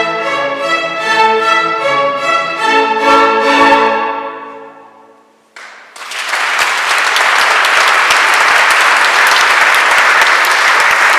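A string orchestra with French horns plays the closing notes of a classical piece, which fade away about five seconds in. Audience applause starts about a second later and carries on.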